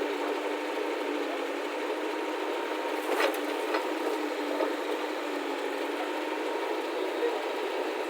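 Diesel engine of a working earth-moving machine running steadily, with a few short knocks about three to four seconds in.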